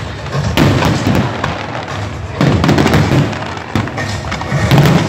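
Fireworks display: dense crackling and popping from many shells bursting at once, with heavier booms. The bursts surge about half a second in, again around the middle, and near the end.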